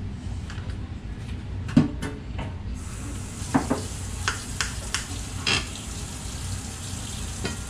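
Egg-dipped bread frying in a pan, with a steady sizzle. About five sharp clinks of utensils on dishes sound over it.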